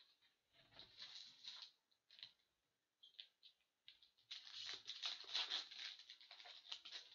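Foil wrapper of an SP Authentic hockey card pack crinkling as it is handled and torn open. The rustling comes in two spells, a short one near the start and a longer, louder one from about four seconds in.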